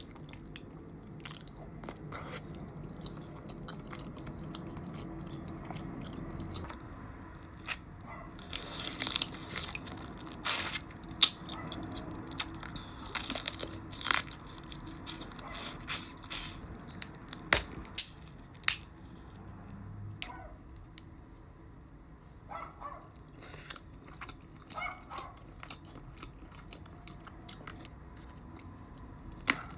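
A person eating a seafood boil: chewing and biting, with many sharp clicks and crackles that are busiest from about eight to nineteen seconds in, then sparser.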